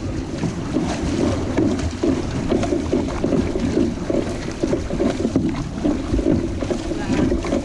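Water rushing and splashing around a moving six-person outrigger canoe, a steady dense wash with irregular churning.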